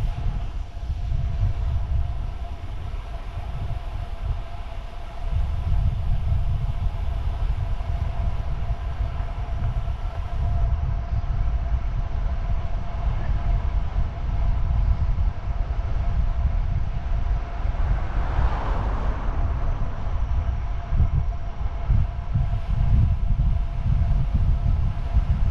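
Wind buffeting the microphone of a moving camera, a heavy uneven rumble, with a steady thin whine under it and a brief swell of hiss about two-thirds of the way in.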